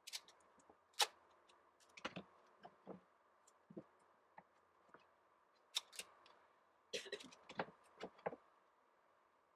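Scattered clicks, crackles and short rasps of packing tape and thin cardboard being handled: tape cut from the roll and pieces pressed onto a folded cardboard form, with a busier run of them near the end.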